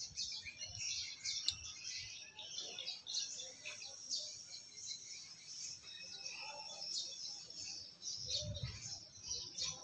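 Small birds chirping continuously in the background, with a brief cluster of low knocks about eight seconds in.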